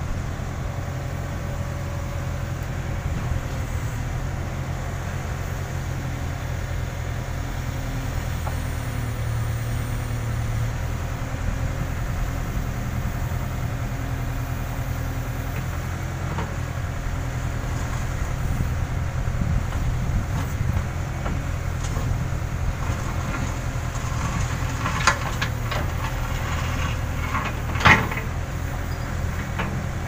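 Case N Series backhoe loader's diesel engine running steadily under digging. In the last several seconds the steel bucket clanks and scrapes against soil and rock, with one loud knock near the end.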